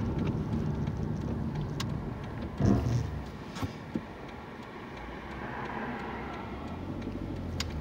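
Car engine and road noise heard from inside the cabin as the car slows to a stop at a junction and idles. There are a few light clicks and a short thump about two and a half seconds in.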